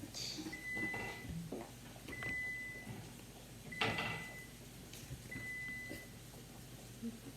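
Four electronic beeps at one high pitch, each under a second long and about a second and a half apart, over light clicks and knocks of handling.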